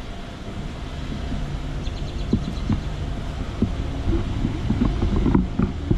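Footsteps and handling bumps on a handheld phone microphone while walking, as irregular short knocks over a low background rumble, growing more frequent from about two seconds in.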